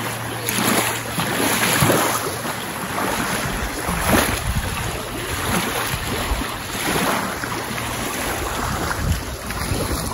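Small waves lapping and washing up on a gravel lakeshore, in irregular surges, with wind buffeting the microphone.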